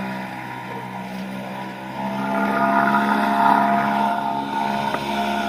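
Nissan (Tohatsu) 3.5 hp two-stroke outboard motor running steadily on a canoe, growing louder about two seconds in.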